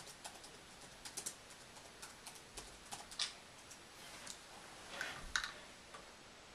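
Irregular clicking of keys being typed on a small laptop keyboard, with a louder knock about five seconds in.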